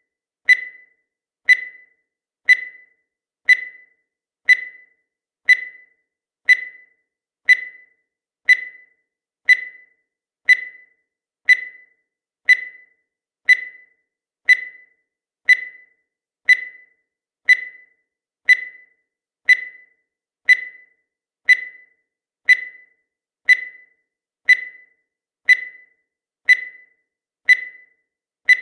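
Countdown timer sound effect: a short electronic beep at about 2 kHz, once a second, each sharp at the start and fading quickly.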